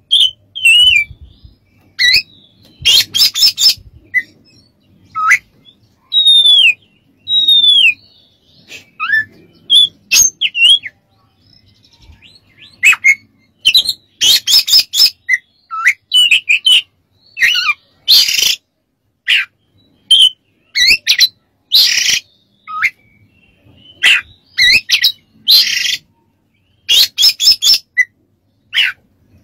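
Oriental magpie-robin (kacer) singing a loud, varied song of clear whistled notes that slide up and down, broken up by short harsh rasping bursts, phrase after phrase with brief pauses between.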